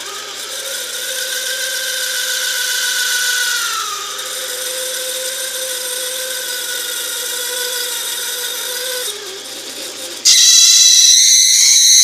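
Taig lathe spindle turning while a spring parting-off tool cuts into a lubricated mild steel bar, giving a steady ringing whine from the cut; one of its tones dips slightly in pitch about four seconds in. About ten seconds in a much louder, higher-pitched ringing squeal starts from the cut and carries on past the end.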